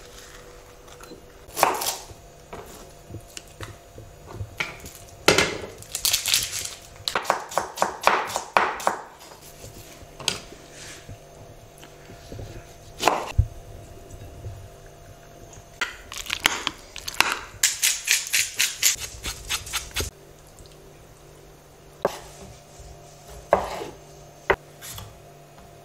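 Chef's knife cutting vegetables on a wooden cutting board: single sharp knocks of the blade on the board and two longer runs of quick chopping strokes, with a faint steady hum beneath.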